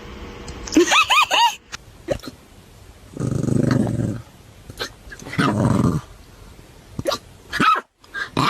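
A puppy vocalising: a quick run of four high rising-and-falling yelps about a second in, then two low growls of about a second each, with a few short sharp sounds near the end.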